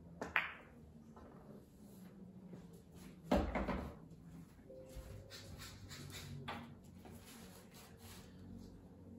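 Pool cue tip striking the cue ball with a sharp click as the Aramith Tournament balls clack together. About three seconds later comes a heavier knock and rattle of a ball dropping into a pocket, then a small click later on.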